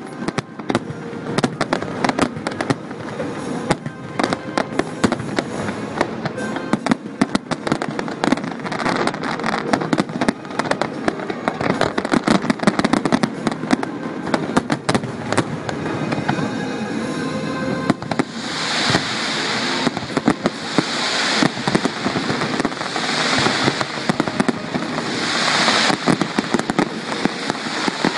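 Fireworks display: a dense run of sharp bangs and crackling shell bursts, and in the last third surges of crackling about every two seconds. Music plays underneath.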